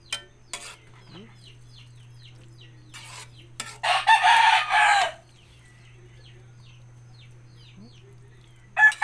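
A rooster crowing once, about four seconds in, with a second crow starting right at the end. Between them, a metal spatula scrapes and clicks against an aluminium wok as spaghetti is stirred.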